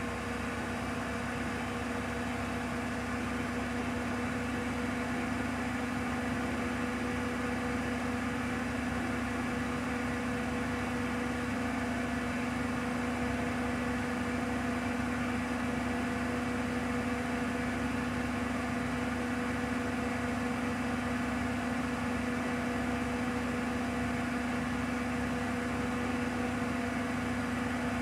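Bosch WAQ28470GB washing machine spinning its empty drum at its top speed of 1400 rpm: a steady motor hum with a clear steady tone. It grows a little louder over the first few seconds as it settles at full speed, then holds level.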